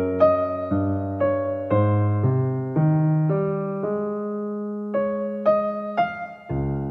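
Slow, gentle electric piano music: soft notes struck about twice a second and left to ring, with a longer held chord midway.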